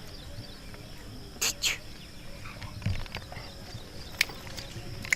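Steady high-pitched drone of crickets, with two short sharp sounds about a second and a half in and a few fainter clicks and a low knock later.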